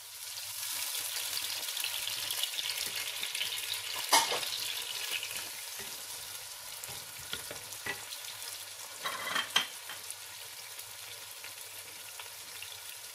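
Chopped tomatoes sizzling with onions and garlic in hot oil in a pot as they are stirred with a wooden spoon. The sizzle swells just as the tomatoes go in and eases off after a few seconds, with a sharp knock about four seconds in and a couple more around nine seconds as the spoon strikes the pot.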